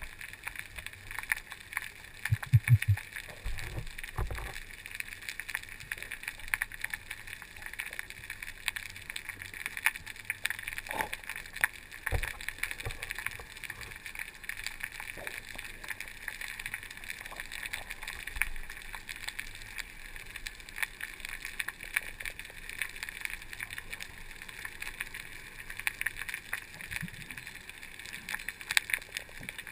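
Underwater ambience over a rocky seabed, picked up by the diver's camera: a steady hiss with a dense crackle of small clicks throughout, and a few dull low thumps about two, four and twelve seconds in.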